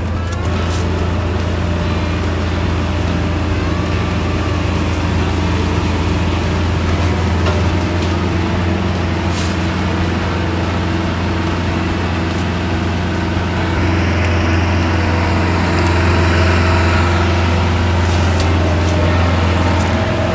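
Korvan self-propelled grape harvester running as it drives down the vine row, a steady deep mechanical hum with several steady tones. It grows louder in the last third as the machine comes close and passes.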